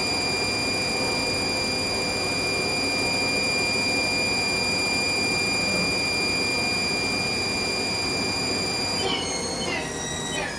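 Haas TL-1 CNC lathe spindle running at speed, giving a steady high-pitched whine over a mechanical hum. About nine seconds in the whine steps down in pitch several times as the spindle slows.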